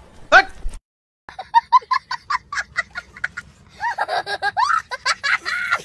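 A young boy laughing hard in quick repeated bursts, starting about a second in after a brief silence, with a fuller stretch of laughter near the end.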